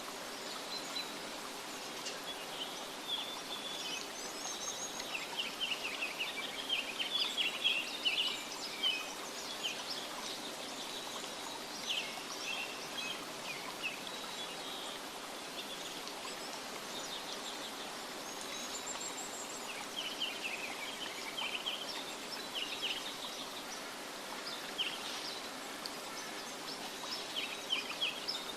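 Birds chirping in scattered bursts of short, high calls over a steady background hiss of outdoor ambience.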